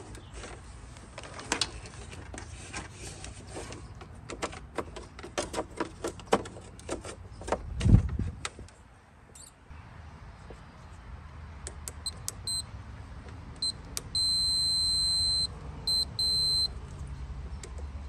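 Clicking and rattling as hands work the fuses and wiring, with one loud thump about eight seconds in. Then a digital multimeter's continuity beeper sounds: a few short blips, one held beep of about a second and a half, and two more short beeps. The beep shows that the fuse conducts and is good.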